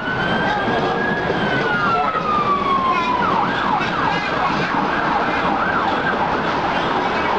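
Emergency-vehicle siren in a slow wail that switches about three seconds in to a fast warbling yelp, heard over the steady running noise of a Red Line subway train moving along the platform.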